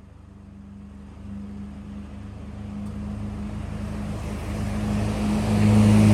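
A motor vehicle's engine running with a steady low hum, growing steadily louder.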